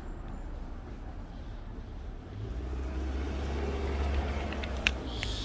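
A vehicle going by, its low rumble swelling in the second half, with one sharp click near the end.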